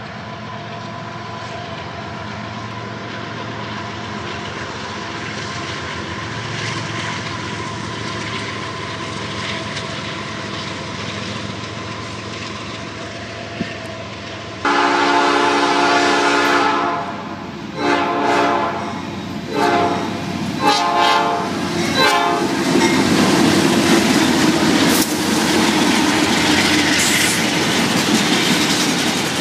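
Diesel freight locomotives draw nearer with a steady engine drone, then sound the air horn in a series of blasts, the first two long and the rest shorter. After the horn, the passing freight cars rumble and rattle on the rails, with wheels clacking over the joints.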